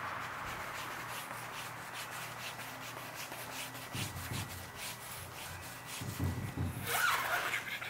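Microfiber towel scrubbed back and forth over car paint with short, quick strokes, working off stubborn contamination that a clay bar would not lift. A few dull bumps come in near the middle and end.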